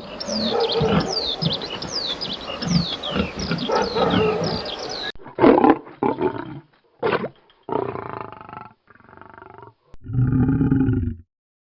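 Many quick falling chirps over a dense background for about five seconds, then a sudden change to a series of loud, separate animal calls, roars and grunts with deep low energy, the last near the end the loudest.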